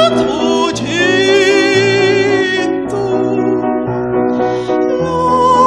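A woman singing in operatic style, holding long notes with vibrato over an instrumental accompaniment. One note is held for nearly two seconds, starting about a second in, and a new note begins near the end.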